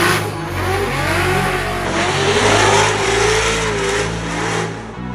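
Drift cars' engines revving, the pitch rising and falling over a hiss of tyre noise, with the bass notes of background music underneath.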